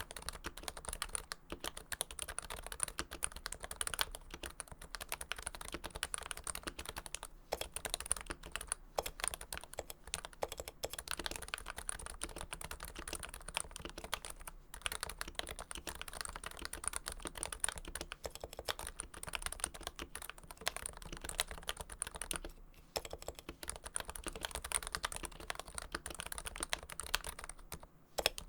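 Fast, continuous typing on a Topre electrostatic-capacitive keyboard, a Realforce Hipro plate in a first-generation Realforce TKL case, its switches lubed with Krytox 105, giving a dense run of soft keystroke thocks.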